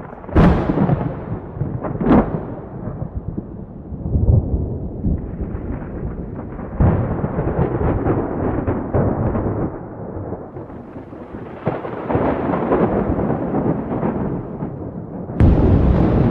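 Close thunder: several sharp cracks in the first few seconds, then a long rolling rumble that swells and fades, and another loud crack near the end.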